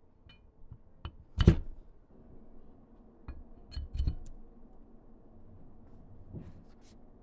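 Metal parts of a Peak PRV-G2 rotary fly-tying vise knocking and clinking as they are handled and the steel stem is set into the pedestal base. There is one loud knock about a second and a half in, a cluster of clicks around four seconds, and a few lighter taps near the end.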